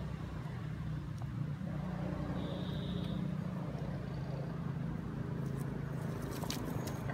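Steady low hum of an idling vehicle engine, with a brief high tone about two and a half seconds in and a few sharp clicks near the end.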